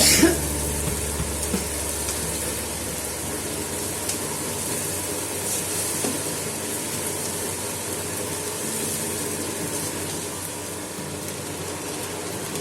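Prawn, vegetable and pasta stir-fry sizzling in a frying pan: a steady hiss, with a short knock at the start.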